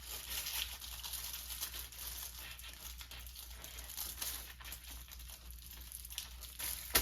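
Aluminium foil crinkling and rustling in irregular crackles as a wrapped meat roll's ends are twisted closed.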